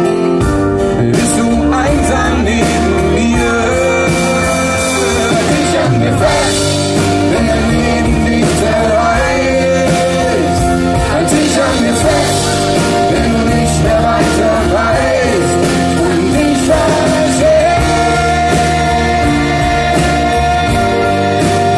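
Live band performance: a male lead singer singing over strummed acoustic guitars, with a steady bass and drums behind.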